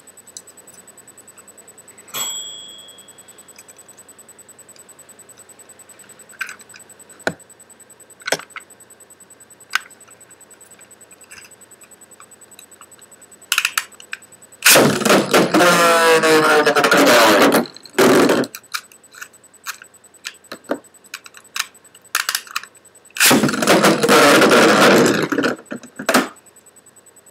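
Metal Fusion Beyblade tops Storm Pegasus and Lightning L-Drago in a plastic stadium: scattered sharp clicks and clacks, one with a brief metallic ring. About fifteen seconds in and again near the end come two loud three-second stretches of whirring, scraping noise.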